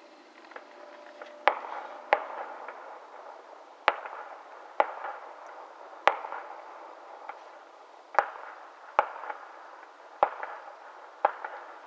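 Aerial fireworks shells bursting: about nine sharp bangs at irregular intervals, each trailing off in a short echo.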